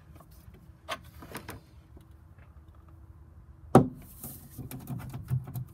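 Plastic radiator fan shroud being lowered into place in front of the radiator, with small clicks and scrapes and one sharp knock a little under four seconds in, followed by low rustling and knocking as it is worked into position.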